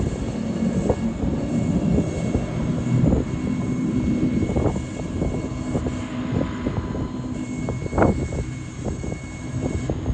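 Motorboat engines droning as speedboats run across open water, with wind buffeting the microphone and a sharp gust about eight seconds in.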